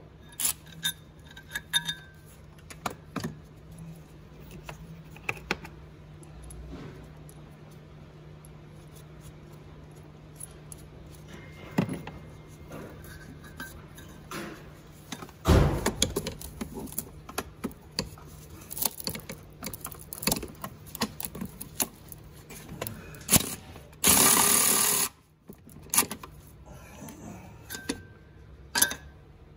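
Metal tools clinking and clicking on and around the engine, a heavy clunk about halfway through, and a cordless ratchet running in one short burst of about a second near the end, over a steady low hum.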